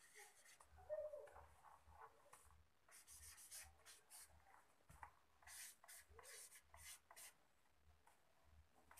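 Faint scratching of someone writing by hand, in short irregular strokes with brief pauses between them.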